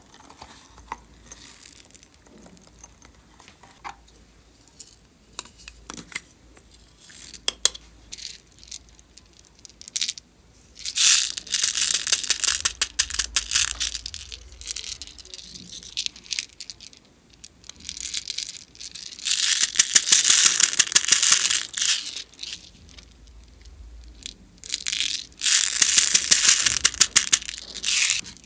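Small plastic pearl beads rattling as they are tipped out of a plastic tray onto slime, in three long pours. Scattered light clicks and taps of handling come before the first pour.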